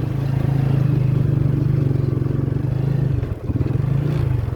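Small motorcycle engine running steadily while being ridden, easing off briefly about three and a half seconds in and again near the end.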